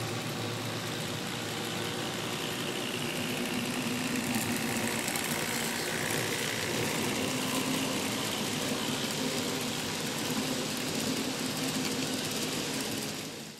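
N-scale model diesel freight train running along the track with a steady engine-like drone. The sound cuts off suddenly at the end.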